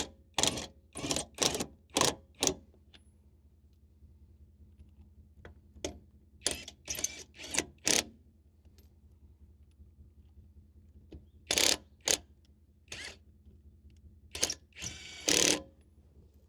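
DECERK 21-volt cordless impact wrench run in short trigger bursts, loosening wheel bolts. The bursts come in groups of a few quick pulses with pauses between, and a longer run near the end.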